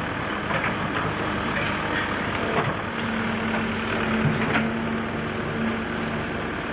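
Mini excavator's diesel engine running steadily as the boom and bucket are worked. A steady higher hum joins about halfway through and lasts about three seconds, with a few light knocks.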